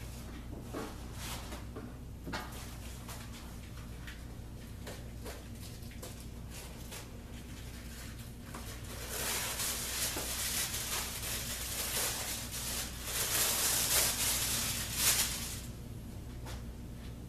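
Self-adhesive carpet squares being handled: scattered light taps and rustles, then from about nine seconds in roughly six seconds of loud rustling, loudest just before it stops, over a low steady hum.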